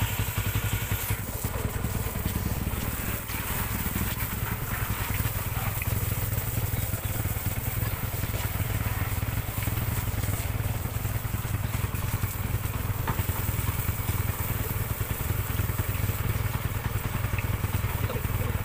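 Yamaha Sniper 150's single-cylinder four-stroke engine idling steadily while a hose nozzle sprays water over the bike, the spray hissing and spattering on the bodywork.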